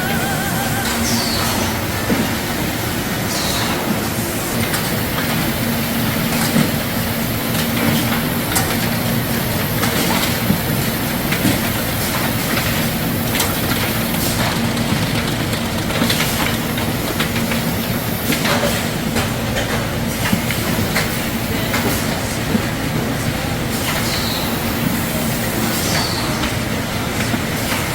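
Mandarin sorting-line machinery running: a continuous clatter of conveyors and rollers with many small knocks, over a steady motor hum. A few short, high squeaks come through, around the first few seconds and again near the end.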